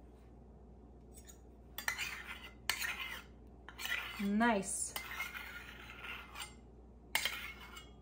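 A metal spoon scraping thick honey out of a stainless steel measuring cup and stirring it into a glass jar of elderberry syrup, clinking against metal and glass. It starts about two seconds in and comes in uneven bursts.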